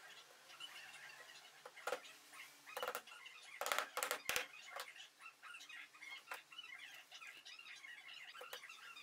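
Soft-faced mallet knocking a wooden frame rail down onto its joints: a series of sharp taps, loudest in a quick cluster about three and a half to four and a half seconds in. Small birds chirp in the background.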